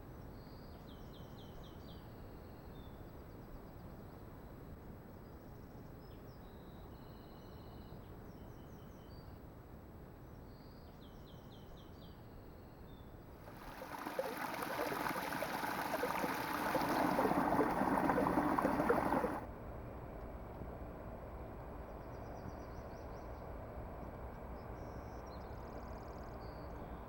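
Songbirds chirping in short, repeated high trills at intervals over a faint background hiss. Partway through, a louder rush of noise builds for several seconds, then cuts off abruptly.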